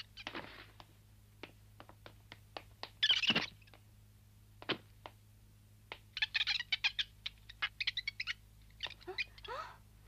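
Cartoon monkey chattering in short, high, squeaky chirps: a loud burst about three seconds in, a quick run of chirps from about six to eight seconds, and a squeak that rises and falls near the end. Light taps are scattered throughout.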